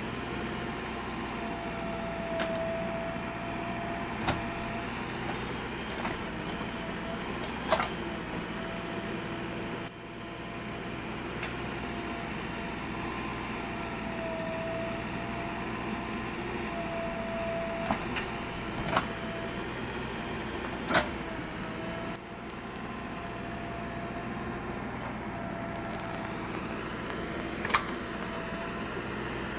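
Backhoe loader's diesel engine running steadily, with sharp knocks every few seconds.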